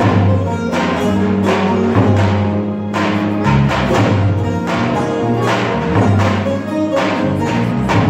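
Live Turkish folk music ensemble playing, with massed bağlamas (saz) carrying the melody over a steady drum beat of about one stroke a second.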